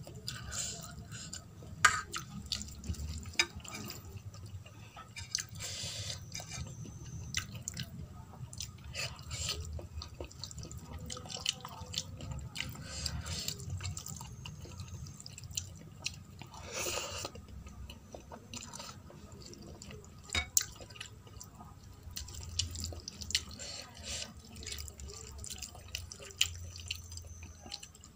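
Fingers kneading boiled rice with runny dal on a steel plate, making wet, clicky squelching, with eating sounds between.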